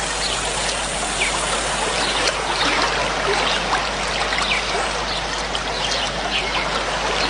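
Steady running water like a trickling stream, with short bird chirps scattered through it.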